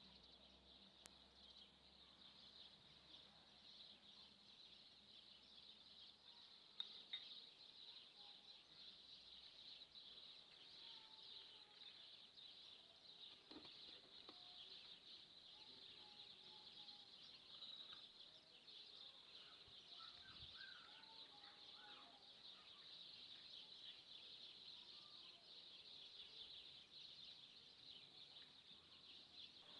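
Near silence: a faint steady high-pitched hiss or chirring, with a few faint short chirps and a couple of soft clicks.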